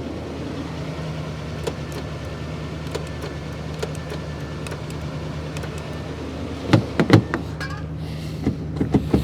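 Pickup truck door latch clicking and knocking as the handle is worked without the door opening, two sharp knocks about seven seconds in, over a steady low hum of the truck's engine idling.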